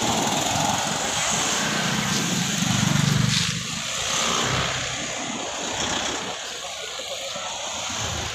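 Road traffic passing close by: a vehicle's rush and engine swell up to their loudest about three seconds in, then fade away.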